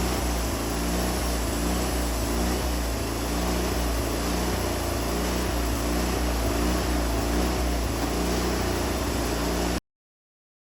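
Wood-Mizer LT40 band sawmill running with a steady engine drone, cutting off suddenly near the end.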